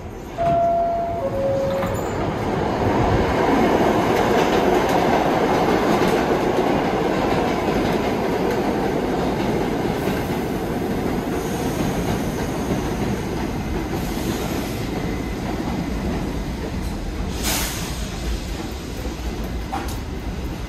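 New York City subway train running by on the track. The wheel and rail noise swells within the first few seconds, then slowly eases off. Near the start there is a short two-note falling tone, and there is a sharp high click late on.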